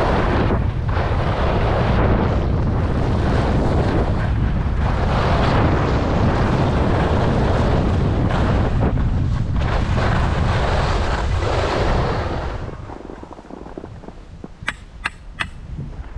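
Wind buffeting the microphone and skis scraping over snow during a downhill run, loud and rushing until it drops away about three-quarters of the way through. After that it is quieter, with three sharp clicks close together near the end.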